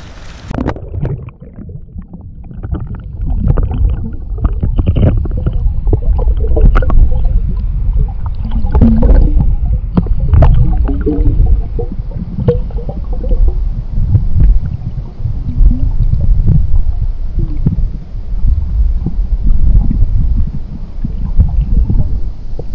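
Muffled underwater sound from an action camera held below the sea's surface: a loud, uneven low rumble of moving water with gurgling and scattered clicks and pops. The sound goes dull right at the start as the camera dips under.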